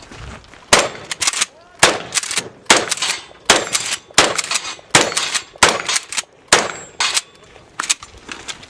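Mossberg 590 pump-action shotgun fired in a rapid string of shots, with the clack of the pump being worked between shots and the clang of steel targets being hit. The shooting starts under a second in and runs in quick succession until near the end.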